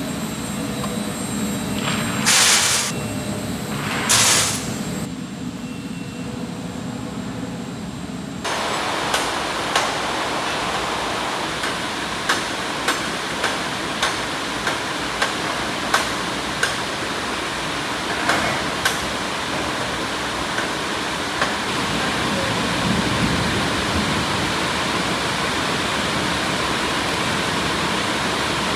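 Machinery humming steadily, with two loud rushes as a bucket of loose granular material is tipped into a feed hopper. Then the steady roar of an open melting furnace, with a run of sharp clicks, about two a second, for several seconds.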